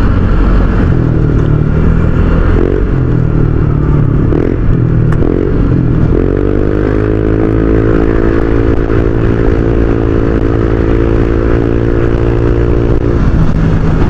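Honda Click 125i scooter's 125 cc single-cylinder engine running through an aftermarket MT8 racing exhaust while riding, a loud, continuous exhaust note. About six seconds in, a steady higher-pitched hum joins it and holds for about seven seconds.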